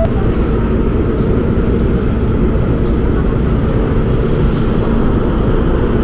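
Motorcycle on the move at low speed: the engine runs steadily under a dense, low rumble of riding noise, with no breaks or revs.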